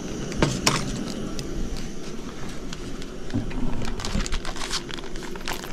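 Hot frying oil crackling over a steady faint hiss, with scattered sharp clicks and rustles.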